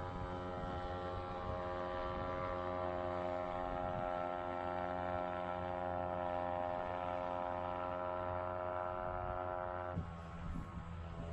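Small Yamaha 2 hp outboard motor running at a steady pitch on a light inflatable boat, a droning buzz. About ten seconds in, the pitch shifts and the sound thins as the throttle or the boat's heading changes.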